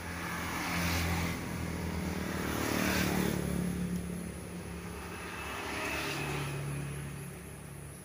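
Gas hissing from a small hand-held gas canister with a brass nozzle, swelling three times, over a steady low machine hum.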